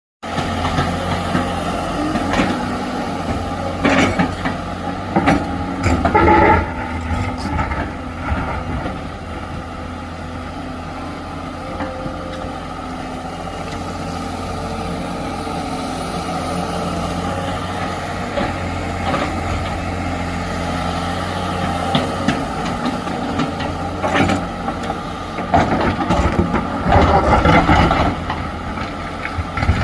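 Tata Hitachi excavator's diesel engine running steadily during road cutting, with bursts of knocks and clatter from the digging, about four to seven seconds in and again near the end.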